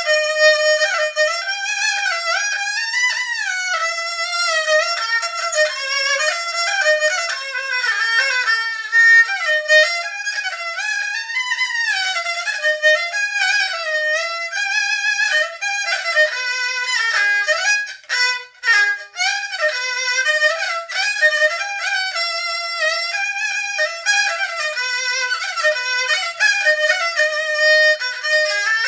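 Erxian, the high-pitched Cantonese two-string bowed fiddle, playing a fast solo melody of quick running notes, with a brief pause about eighteen seconds in.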